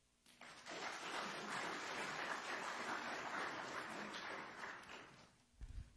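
Audience applauding: clapping that swells up within the first second, holds, and fades out after about five seconds, followed by a low bump near the end.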